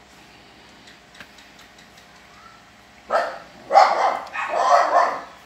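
A dog barking loudly a few times in quick succession, starting about three seconds in, after some faint clicks.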